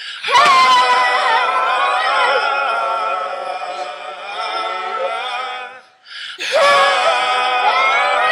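A young child singing without accompaniment in long, wavering held notes, with no clear words. The voice breaks off for about half a second around six seconds in, then carries on.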